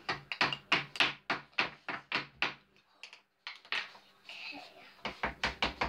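Small wooden hammers tapping on plaster fossil-dig blocks, quick steady knocks about four a second, a short pause, then more taps near the end.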